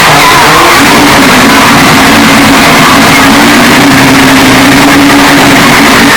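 Mazda 767B's four-rotor Wankel rotary engine held at a steady high-rpm note, heavily overdriven and clipped into harsh distortion. The note settles about a second in and breaks off just before the end.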